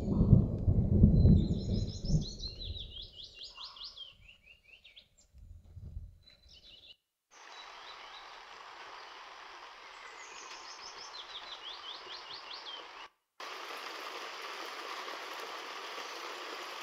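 Thunder rumbling, loudest at the start and dying away over the first three seconds, with a songbird's quick descending trills; a second, softer rumble comes about six seconds in. From about seven seconds, steady rain hisses on the trees, with another bird trill partway through.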